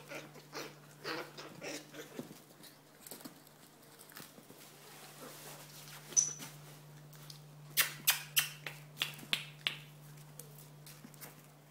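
Small puppies play-fighting and scrambling in a plastic laundry basket. There are soft whimpers and yips at first, then sharp clicks and knocks of claws and paws against the basket, in a quick cluster of about eight about eight seconds in.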